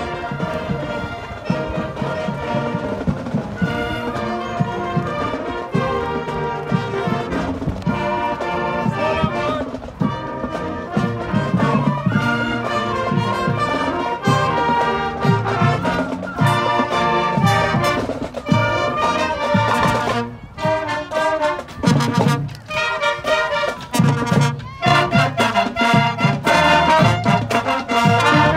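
High school marching band playing while marching: brass and saxophones with flutes, growing louder toward the end as the horn section nears. Past the middle comes a run of short, separated notes.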